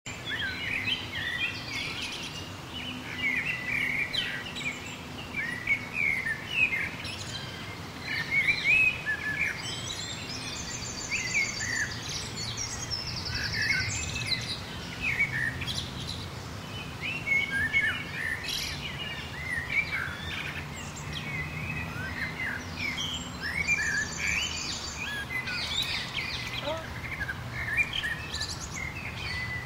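Several small birds chirping and singing in short, overlapping calls, with a fast high trill twice. A steady low background hum runs underneath.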